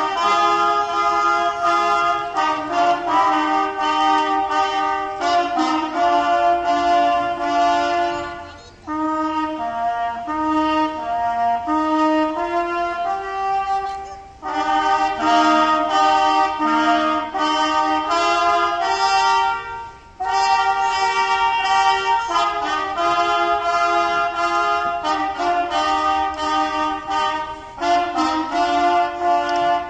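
A small ensemble of trumpets playing a piece in harmony, several sustained notes sounding together. The music moves in phrases, with brief breaks about 9, 14 and 20 seconds in.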